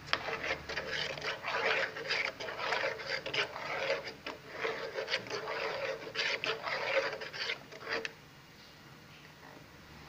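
A spoon stirring arroz con leche in an aluminium pot, scraping the bottom and sides in a run of irregular scrapes and small clicks that stops about eight seconds in.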